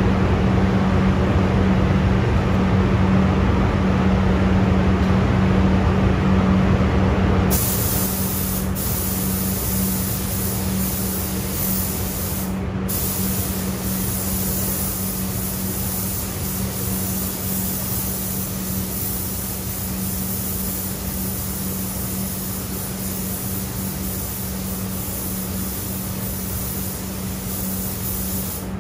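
Gravity-feed paint spray gun hissing as color is sprayed onto a motorcycle fender, starting about seven and a half seconds in and going on steadily, with one brief stop of the trigger midway. Under it, the paint booth's exhaust fan runs with a steady hum.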